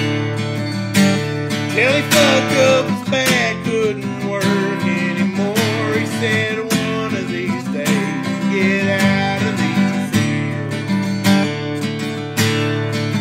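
Acoustic guitar strummed in a steady country rhythm, chords ringing between regular strokes.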